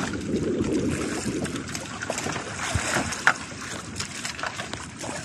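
Wind buffeting the microphone and sea water washing against the hull of a small outrigger fishing boat, with scattered light knocks and clicks as a gill net is pulled in by hand over the side.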